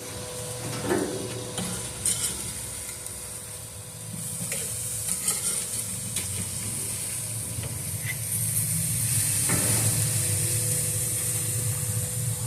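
Marinated chicken sizzling on a charcoal grill, with scattered pops and crackles over a steady hiss. The sizzle grows louder partway through.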